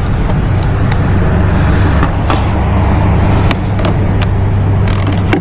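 A steady low mechanical hum like a running engine, with scattered short metallic clicks of hand tools working on a nut.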